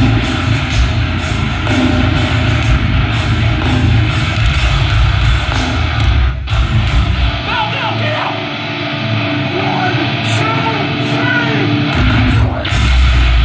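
A metallic hardcore band playing loud through a concert PA, with distorted guitars and drums. The music cuts out for a moment about six seconds in. The heavy low end then drops away for a few seconds, leaving gliding pitched sounds, before the full band crashes back in near the end.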